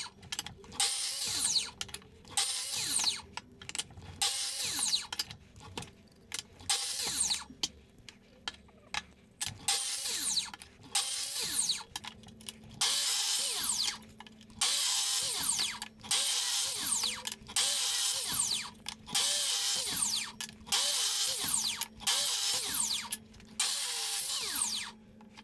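Metabo mitre saw cutting spruce glue-laminated board in a quick series of short cuts, about one a second. Each burst of motor and blade noise carries a falling whine as the blade spins down.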